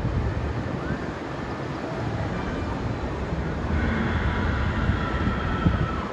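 Wind buffeting the microphone over a rush of water, a steady low rumble, with faint high thin tones in the background near the end.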